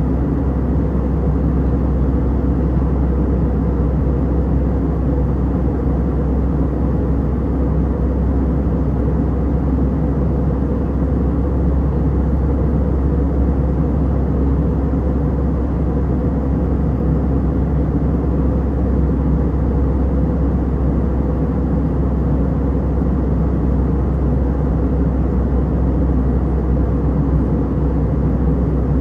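Steady cabin noise of an Airbus A320 airliner in flight: an even, low rumble of engines and rushing air that does not change.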